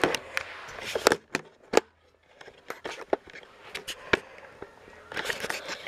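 Camera handling noise: a string of sharp, separate clicks and knocks, with a short near-silent gap about two seconds in, as the camera is picked up and moved about.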